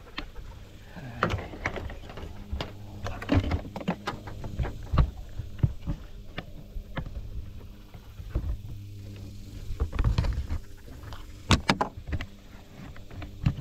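Irregular knocks and rustles of footsteps and a handheld camera being moved, over a steady low hum.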